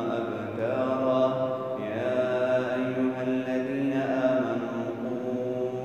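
A man reciting the Quran in a slow, melodic chant, drawing out long vowels in phrases with short breaks between them.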